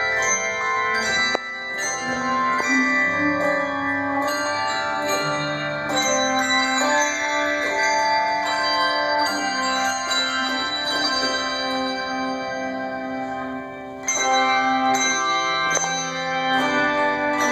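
Handbell choir ringing a hymn: chords of many bells struck together and ringing on, a new chord about every second, with a louder entry about two-thirds of the way through.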